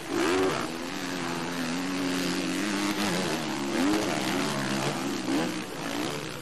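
Motocross bike engines running on the track, a steady droning note whose pitch keeps rising and falling as riders throttle on and off. There are sharper revs about half a second in and again near four seconds.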